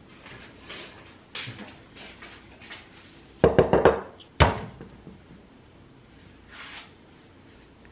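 Household knocking and clatter: a few soft rustles, then a quick run of loud knocks and a single sharp bang just after.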